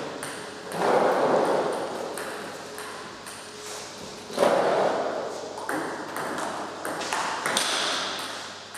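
Table tennis rally: the ball clicks sharply off rubber bats and the table at an uneven pace during backhand topspin strokes played against backspin balls. Two louder swells of noise come about a second in and again near the middle.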